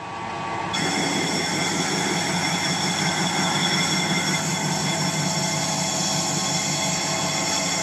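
Metal lathe running with a turning tool cutting the final drive centre for a 2-inch-scale Fowler showman's traction engine. The sound is steady machining noise. About a second in it grows louder and a steady high whine joins as the tool takes the cut.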